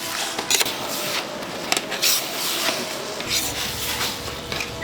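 Food-counter kitchen clatter: dishes, containers and utensils knocking against each other over a steady hiss of kitchen noise, with a low hum coming in about three seconds in.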